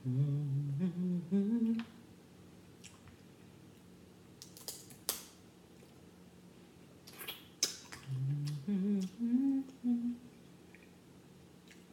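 A woman humming short rising tunes in enjoyment of her food, once over the first two seconds and again from about eight to ten seconds in. In between come a few short, sharp eating noises as she works at the seafood.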